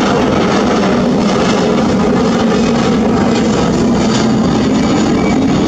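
Airbus A321-200's twin jet engines at takeoff power as the airliner climbs out after departure, a steady, loud noise.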